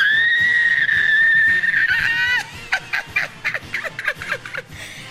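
A woman's long, high-pitched squeal of excitement, held for about two and a half seconds, then breaking into short, squeaky giggles.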